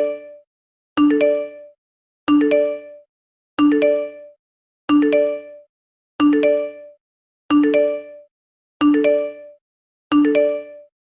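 iPhone text message alert tone: a short chime of three quick rising notes, repeated about every 1.3 seconds, eight or nine times.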